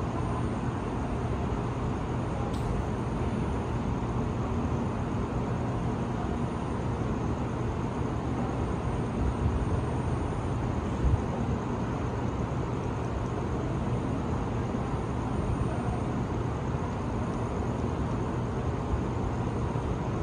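Steady low hum and rush of a THSR 700T high-speed trainset standing still at the platform with its equipment running. There is one faint click about two and a half seconds in.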